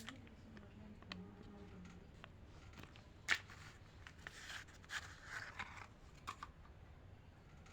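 Candy wrappers being handled and torn open: scattered crinkling and scratchy tearing sounds, with a sharp click about three seconds in.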